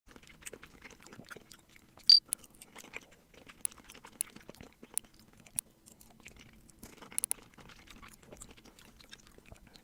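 Loud close-up chewing and crunching of food, full of sharp wet clicks and crackles, with the loudest snap about two seconds in and a quick run of clicks near the end.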